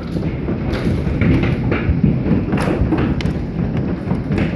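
Golf-ball-sized hailstones pounding down in a dense, irregular barrage of heavy thuds and sharper knocks, with no let-up.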